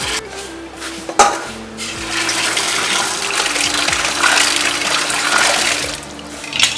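Tap water pouring into a stainless steel basin while hands rub and rinse garlic, galangal and red chillies in it. There is a sharp knock about a second in, and the water grows louder from about two seconds in.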